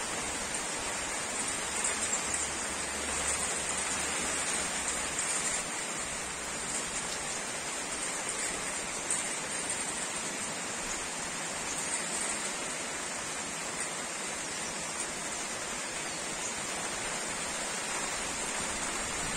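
Heavy rain pouring down steadily on grapevine leaves and trees, an even hiss with no letup.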